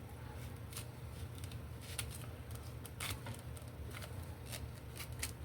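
Scattered light clicks and taps of an object being handled, over a low steady hum.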